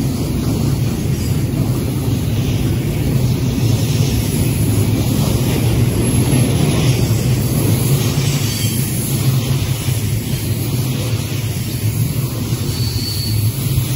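Freight cars of a Union Pacific manifest train rolling past close by: a steady low rumble of steel wheels on the rails, with a short high wheel squeal near the end.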